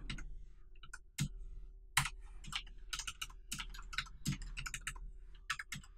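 Typing on a computer keyboard: irregular clicks of keystrokes, a few of them heavier presses, over a faint steady hum.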